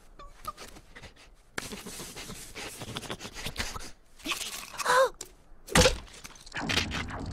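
Cartoon sabre-toothed squirrel sound effects. Light pattering steps give way to a scraping slide on ice for about two seconds, then a short squealing vocal cry, then a sharp thunk about a second later.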